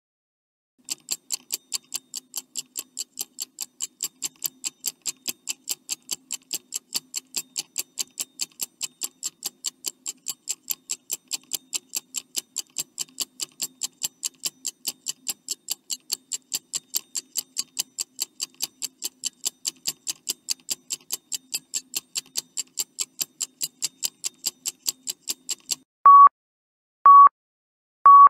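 Countdown timer sound effect: a clock ticking steadily, about three ticks a second. Near the end the ticking stops and louder electronic beeps sound once a second, signalling that time is running out.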